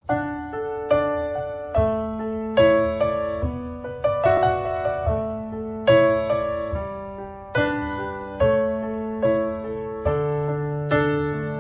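Background music: a slow, gentle solo piano, notes and chords struck a little under once a second, each ringing and fading.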